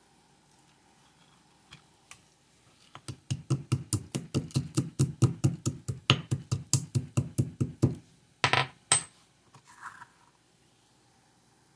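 Pestle pounding spices in a green marble mortar: a rapid run of sharp knocks, about five a second for some five seconds, then two louder knocks.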